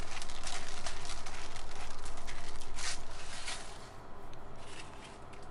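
Hands handling a salted whole fish on aluminium foil: soft rubbing, squishing and light foil crinkling, easing off after about three and a half seconds, over a steady low hum.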